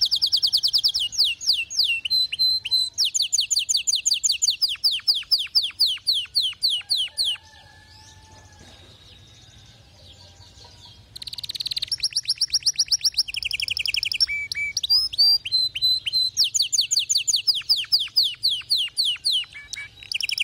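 Domestic canary singing: fast trills of rapidly repeated high, falling notes in two long song phrases, with a pause of about four seconds between them.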